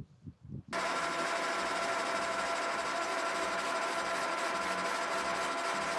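Metal lathe running: a steady whine over an even hiss, starting abruptly about a second in.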